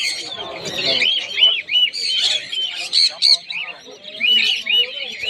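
Small birds chirping busily, with several overlapping voices. There are quick runs of short, high, arching chirps, repeated several times a second.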